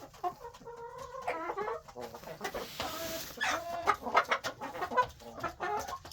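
Several chickens clucking, many short calls one after another.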